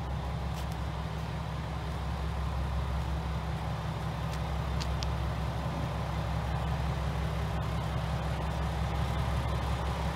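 JR West KiHa 120 single-car diesel railcar idling at the platform, a steady low engine drone that grows slightly louder.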